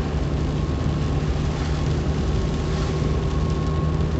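Car running steadily at road speed, heard from inside: a low engine hum under even tyre and road noise on a rain-wet road.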